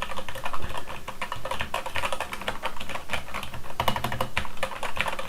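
Typing on a Keychron K8 wireless mechanical keyboard with Gateron Brown switches: a rapid, continuous run of keystrokes, with a good level of clicky without being overly clackety.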